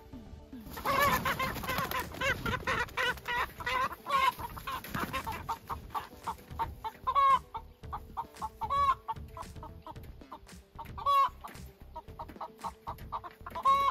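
Chickens squawking in alarm as they are chased and grabbed to be caught. A dense flurry of rapid squawks starts about a second in, then single loud squawks every couple of seconds.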